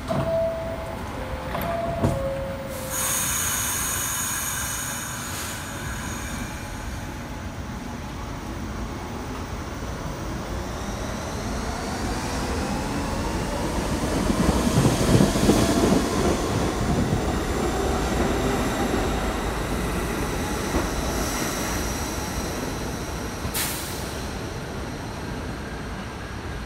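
New York City subway train leaving the station: a two-note descending door chime near the start, then the train pulls out with motor whine rising in pitch and wheel squeal, loudest around the middle. A sharp click sounds near the end as rail noise continues.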